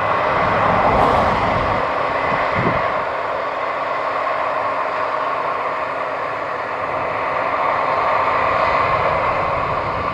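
Case IH Axial Flow 8230 combine running, a steady machine drone with a faint high whine, and a couple of brief low thumps about one and two and a half seconds in.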